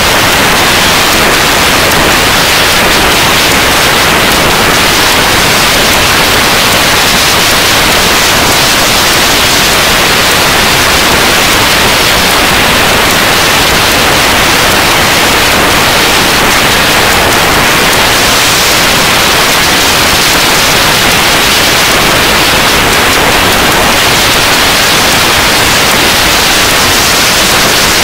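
Loud, steady static hiss with no change in level and no other sound heard through it.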